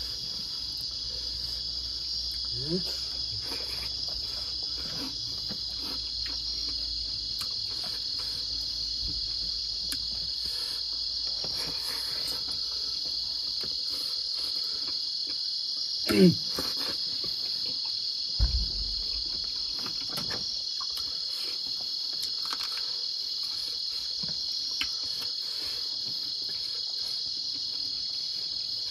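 Steady chorus of crickets, with soft clicks and smacks of eating by hand. A brief vocal sound about sixteen seconds in is the loudest moment, and a low thump follows shortly after.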